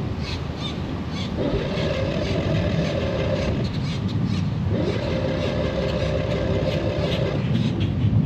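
Steady low rumble of a running vehicle, with two long, steady horn-like tones of two to three seconds each sounding over it.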